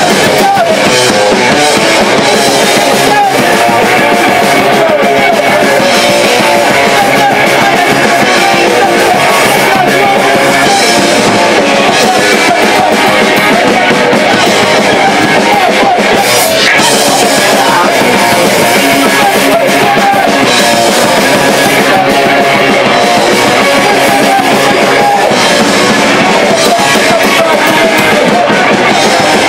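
Punk band playing live, with electric guitar and drum kit, loud and steady throughout.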